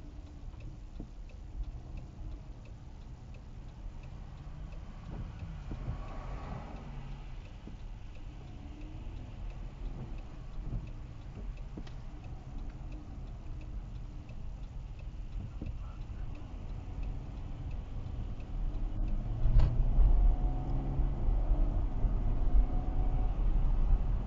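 Car driving, heard from inside the cabin through a windshield dash cam: a steady low road and engine rumble with faint regular ticking. The rumble grows louder from about three-quarters of the way in, with a rising engine note.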